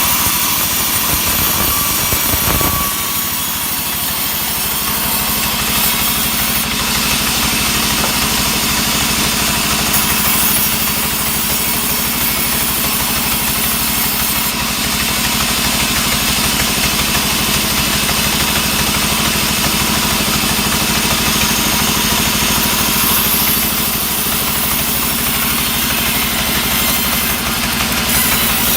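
Engine-driven sawmill wood saw running steadily: a constant engine drone under a dense hiss.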